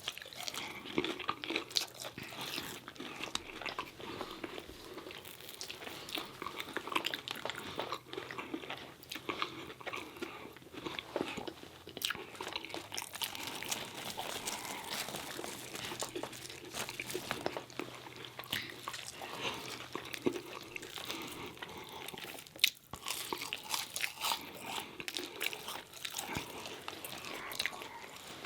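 Close-miked chewing and biting of fried fast food, with dense, irregular wet mouth clicks and crunches throughout and one sharper, louder click late on.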